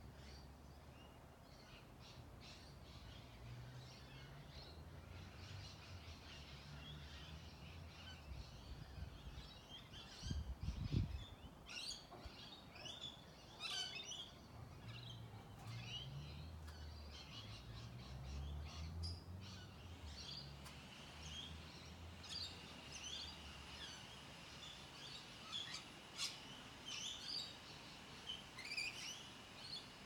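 Small birds chirping and trilling in the background over a low rumble, with a brief low thump about ten seconds in and a faint steady high tone joining in the last third.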